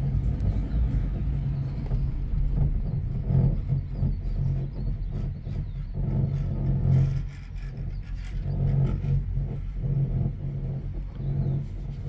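Low, uneven rumble of wind on the microphone and the moving open cable-car cabin, swelling and easing in level.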